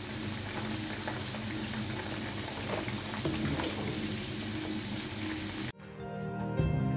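Potato fries bubbling and sizzling in a wok of deep cooking oil, with scattered faint crackles, as they are lifted out after the first fry, cooked through but not yet crunchy. The frying cuts off abruptly near the end and music starts.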